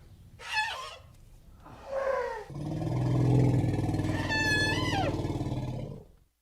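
Elephant calls: two short high calls falling in pitch, then from about two and a half seconds in a long low growling rumble lasting about three and a half seconds, with a high trumpeting squeal over it near the middle that drops away at its end.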